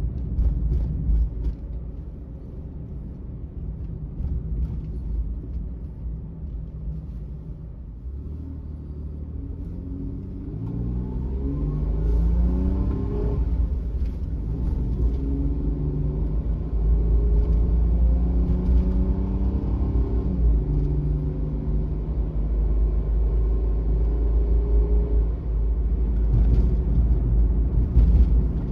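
Suzuki Every kei van's small three-cylinder engine and road noise heard from inside the cab, a steady low rumble. The engine note climbs as the van accelerates about ten seconds in, holds, then drops abruptly about two-thirds of the way through.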